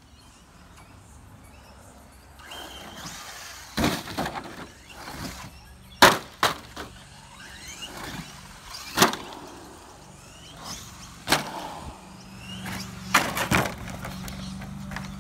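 1/10-scale short course RC truck jumping ramps: its electric motor whines up and down between a series of sharp clacks and knocks as the truck lands and strikes the ramps and road, the loudest about six seconds in.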